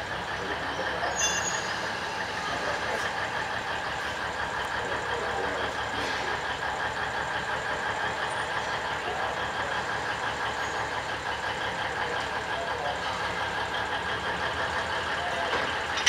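Alishan Forest Railway diesel locomotive idling steadily with an even engine throb, with a brief metallic clink about a second in.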